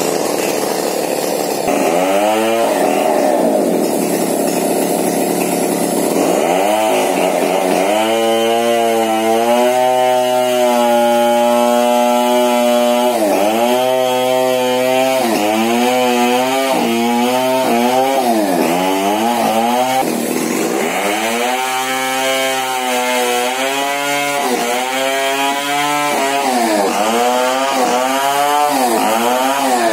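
Two-stroke chainsaw running hard, its pitch sagging and recovering again and again as it bogs in the cut and frees up, with a few stretches held steady at high revs.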